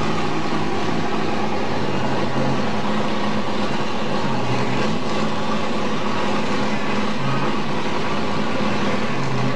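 Mini pulling tractor's engine running loudly and steadily, its pitch shifting slightly now and then.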